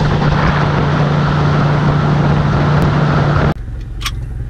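Motorboat engine running at speed with wind and rushing wake water, loud with a steady low hum; about three and a half seconds in the sound drops suddenly to a quieter, steady engine hum.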